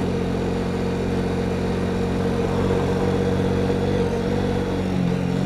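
KTM motorcycle's engine running steadily as the bike is ridden at a constant speed, its note rising slightly near the end.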